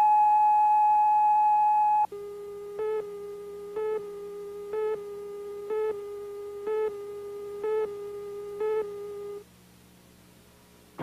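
Electronic test tones at the head of a tape. A loud steady tone cuts off about two seconds in and gives way to a lower, quieter steady tone. That tone carries a short beep about once a second, seven beeps in all, and stops over a second before the end, leaving a faint hiss.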